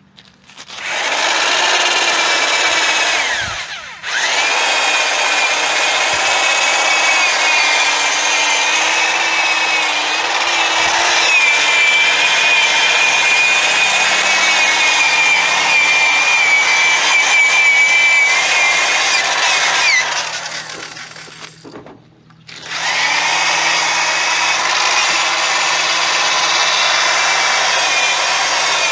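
Electric drill spinning a foam polishing pad, buffing sealant onto a plastic headlight lens. It spins up with a rising whine, cuts out briefly a few seconds in and restarts, runs steadily, winds down about 20 seconds in, and starts up again after a short pause.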